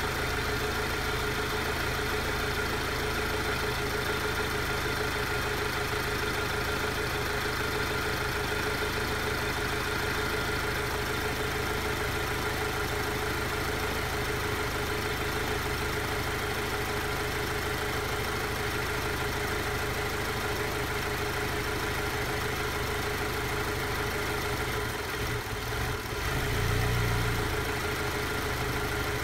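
Alfa Romeo Giulia engine idling steadily after a cold start, an idle the owner calls rough. Near the end the sound briefly dips, then swells for about a second.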